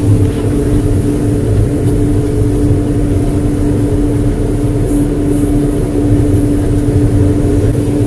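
Johnston mechanical street sweeper at work, heard from inside its cab: the engine and sweeping gear run with a steady drone and an even hum.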